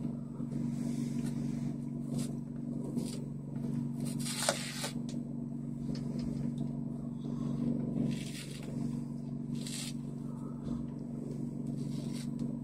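Hands pulling apart and tearing open a sanitary napkin, with scattered papery rustles and crinkles over a steady low hum.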